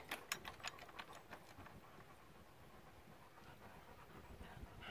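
A dog panting faintly, with a few light taps near the start.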